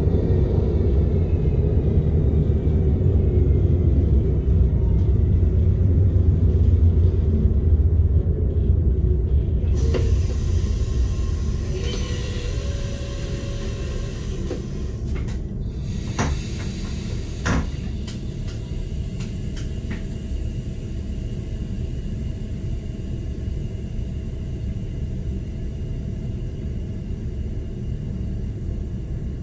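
Cab rumble of an SBB RBDe 560 'Domino' electric multiple unit, with a faint falling whine in the first seconds as the train slows. About a third of the way in it becomes quieter and steadier, with a few sharp clicks and knocks a little past halfway.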